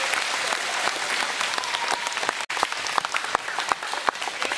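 Audience applauding, many hands clapping steadily, with a momentary dropout about halfway through.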